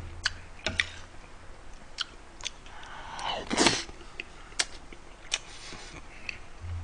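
Eating sounds: a metal spoon clicking against the plate and chewing of fried rice, with one short, breathy noise from the eater about three and a half seconds in.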